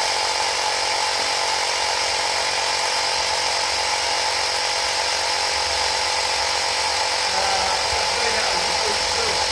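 Portable electric air compressor running steadily as it pumps air through its hose into a rugby ball. It gives an even motor buzz with a steady whine.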